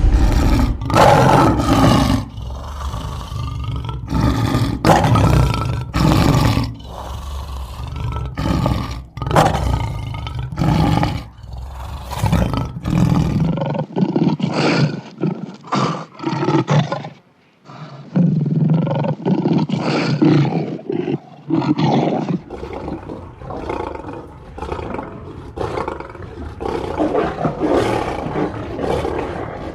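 Lions roaring, a run of loud calls one after another with short gaps between them, broken by a brief pause about halfway through.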